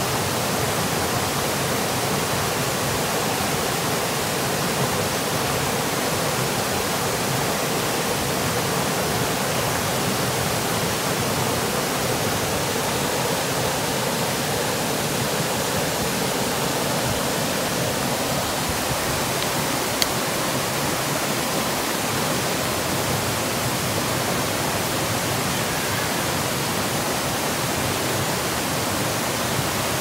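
Waterfall pouring steadily: a loud, even rush of falling water, with one brief click about two-thirds of the way through.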